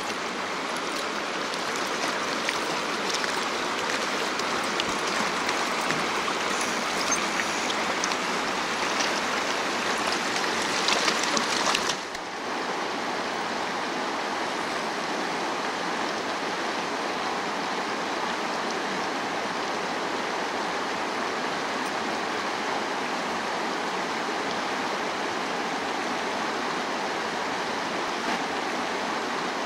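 A fast mountain river rushing over rocks and rapids: a steady, even roar of water. About twelve seconds in it changes abruptly to a slightly quieter, very even rush.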